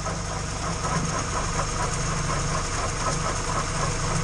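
Honda CRX idling, with a steady grinding rattle from its transmission under the engine sound. The owner suspects a failing input bearing.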